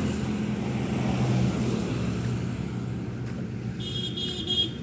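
Road traffic: a small Suzuki hatchback's engine passes close at the start, then a steady motor hum from passing vehicles. A brief high-pitched tone sounds about four seconds in.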